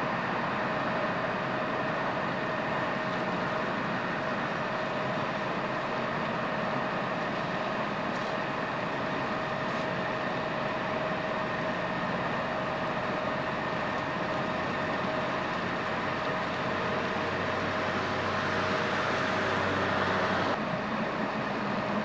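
Fire engines running at a building fire, their engines and pumps making a steady rumble with a constant hum, mixed with the hiss of water jets. The sound swells slightly and then drops off sharply about twenty seconds in.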